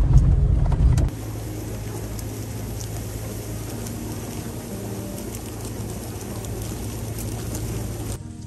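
A motor vehicle running: a loud low rumble for about the first second, then, after a sudden cut, a steadier engine hum with wind hiss.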